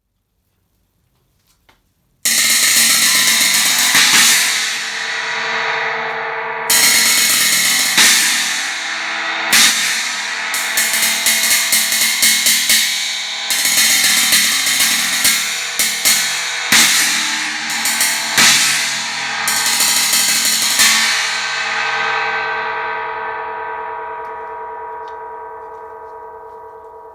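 Dream 16-inch China cymbal struck and left to ring with a bright, trashy wash. It is hit about two seconds in, again a few times, then in a run of quick repeated hits. After the last hit it rings out, fading slowly over the last several seconds.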